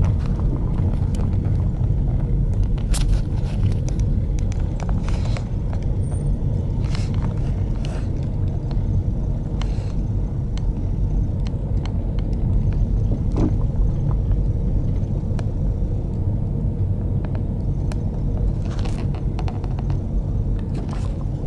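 A car driving, heard from inside its cabin: a steady low rumble of engine and road noise, with a few light clicks and knocks scattered through it.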